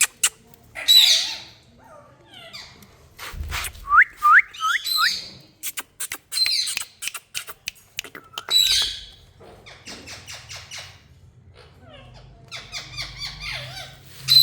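Indian ringneck parakeet giving harsh squawking calls several times, with a quick run of four short rising whistles about four seconds in and sharp clicks scattered between the calls.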